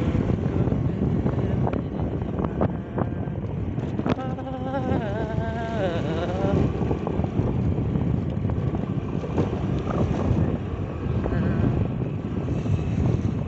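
Motorcycle engine running with wind buffeting the microphone as the bike rides along. About four seconds in, a wavering pitched tone sounds for a couple of seconds.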